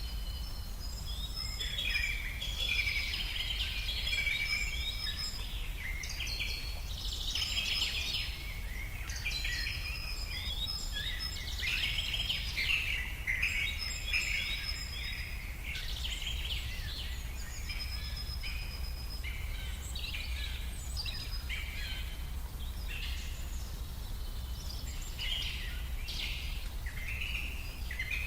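Many songbirds singing and calling at once: overlapping chirps, trills and short high whistled notes that repeat throughout, over a low steady rumble.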